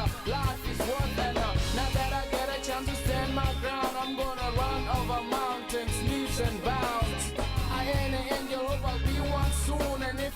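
Music: an upbeat song with drums and bass on a steady beat.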